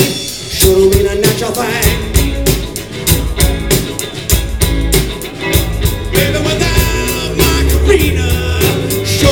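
Live blues band playing, with a steady run of drum strokes, a bass line and singing.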